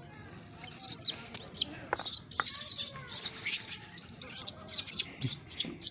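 Monkey giving a rapid string of short, high-pitched squeaks and chirps, starting about a second in.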